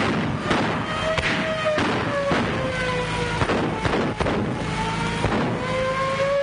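A wailing police siren, its pitch sagging and then climbing again, under a rapid volley of gunshots, about a dozen sharp cracks fired irregularly through it: a police car chase with an exchange of fire, on an old 1930s film soundtrack.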